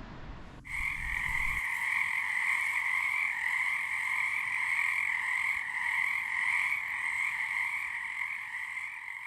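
Dense chorus of frogs calling together, cutting in abruptly about half a second in and holding steady before fading out near the end.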